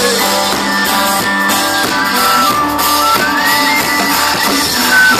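Live band music with acoustic guitar and long held notes, recorded from the audience.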